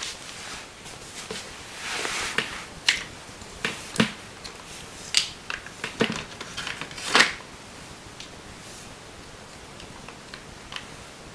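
Clicks and rustles of hands handling a NiMH battery pack and its wires against a plastic RC truck chassis, with a sharp click about seven seconds in; after that only a faint steady hiss.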